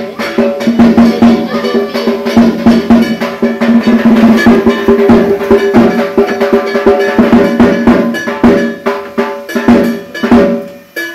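Fast percussion: rapid drumming with a clanging metal bell, over a steady held tone, dropping away near the end.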